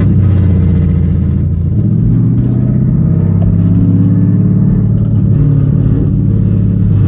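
2018 Ford Mustang GT's 5.0 L V8 running at low speed with no mufflers, its exhaust dumped after a cat-delete X-pipe, giving a loud, steady rumble that rises and falls slightly in pitch.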